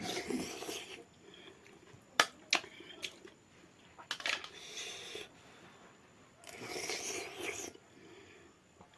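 Close-up eating sounds: chewing in short spells, with a few sharp mouth clicks about two seconds in.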